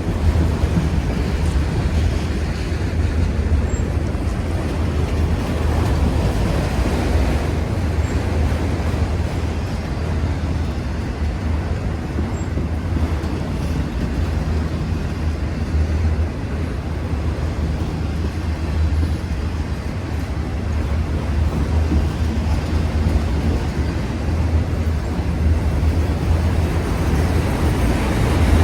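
Empty autorack freight cars of a train rolling past, making a steady, heavy rumble.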